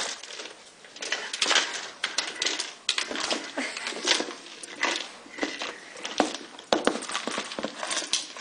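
A dog nosing and mouthing a plastic Kong Wobbler puzzle toy, which knocks about with treats rattling inside, in irregular clatters and knocks.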